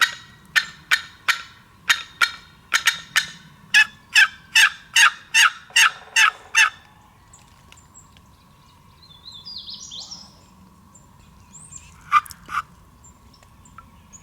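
Hunter's turkey call sounding a run of about eighteen short, sharp yelps that come faster toward the end, used to draw a gobble from distant toms. It falls silent after about seven seconds, and two more short notes sound about twelve seconds in.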